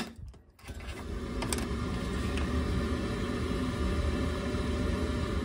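Baxi Duo-Tec combi boiler switched back on after an expansion vessel recharge: a sharp click, then about a second in it starts up and runs with a steady mechanical hum.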